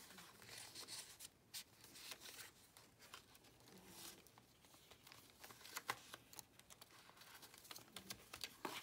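Faint rustling and soft taps of paper pages and a paper insert being handled in a handmade journal.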